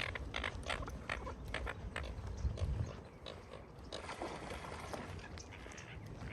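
Footsteps of a person walking, about three steps a second, for the first three seconds or so; from about four seconds in, a rougher, noisier chatter takes over.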